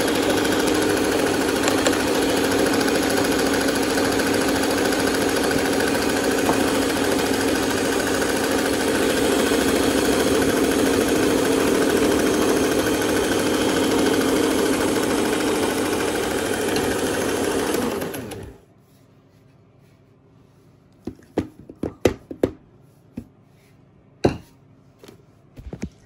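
Electric mixer running steadily, its twin beaters whisking cake batter in a bowl, then switched off about eighteen seconds in. A few light knocks and clicks follow.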